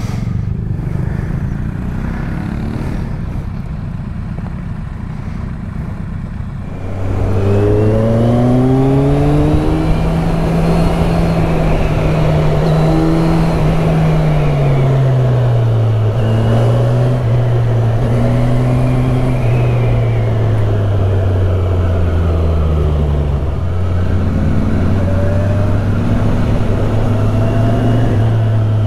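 Kawasaki Z1000SX (Ninja 1000) inline-four engine running at a standstill with a low rumble, then pulling away about seven seconds in. Its note rises and falls as the bike accelerates and rides on.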